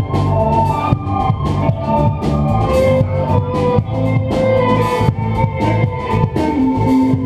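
A band playing live: guitar lines over a drum kit, with steady low bass notes.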